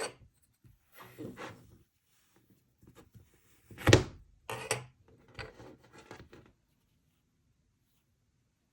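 Toys and packaging being handled: scattered knocks, clicks and rustles, the loudest a sharp knock about four seconds in, then quiet for the last couple of seconds.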